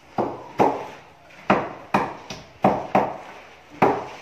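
Hand hammer knocking on the concrete-block wall at the edge of a window opening: about eight sharp blows at an uneven pace, each ringing briefly in the bare room.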